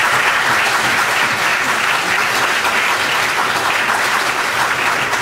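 Congregation applauding steadily, a dense sound of many hands clapping that begins to thin into scattered claps near the end.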